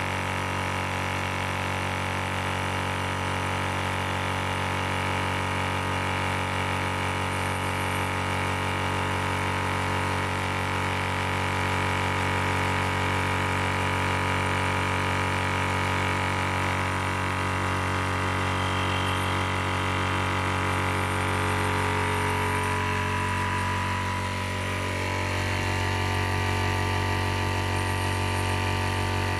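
Portable 300 bar (4500 psi) high-pressure air compressor running steadily with a droning hum while charging a PCP airgun's air reservoir. Its hum shifts a little about 25 seconds in.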